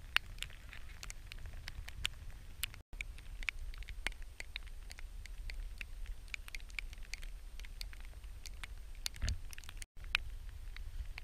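Irregular sharp ticks and taps of raindrops hitting the camera, over a low rumble, with a soft thump about nine seconds in. The sound cuts out for an instant twice.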